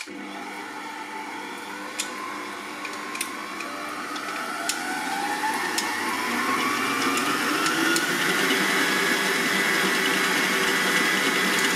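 Silvercrest SKM 650 A1 650-watt stand mixer running empty, its motor switching on and whining higher and higher as the speed dial is turned up. After about eight seconds it holds steady at top speed, with a few light clicks along the way.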